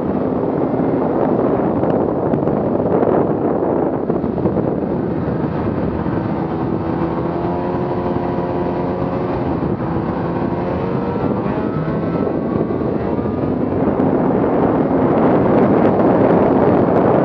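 2017 Arctic Cat M8000 snowmobile's two-stroke twin engine running along the trail, its pitch wavering through the middle, growing louder over the last few seconds.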